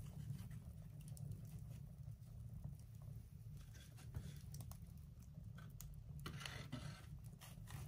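Wood fire crackling with scattered sharp clicks in the open firebox of a wood-burning cook stove, over a steady low rumble. About six and a half seconds in there is a short scraping rustle of wood as a flat slab of firewood is handled at the firebox mouth.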